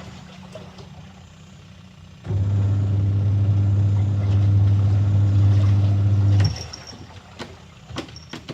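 Washing machine motor running with a steady low hum, starting about two seconds in and stopping about four seconds later, with quiet pauses either side: the stop-start rhythm of a wash cycle agitating. A few sharp clicks come near the end.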